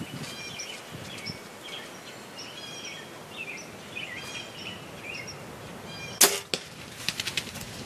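Compound bow (Mathews Halon 6) shot: a sharp, loud snap about six seconds in, with a softer second knock a moment later and a brief patter of clicks after it. Small birds chirp in the background.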